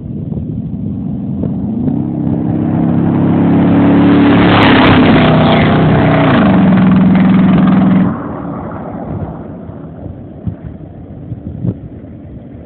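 Chevrolet half-ton pickup with true dual exhaust and catalytic converters driving past under throttle. The exhaust note builds, its pitch drops as the truck goes by about six seconds in, and it cuts off sharply about eight seconds in, leaving a fainter engine sound.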